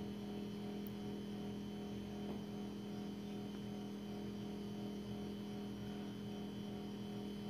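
Faint, steady low hum made of a few even tones that do not change.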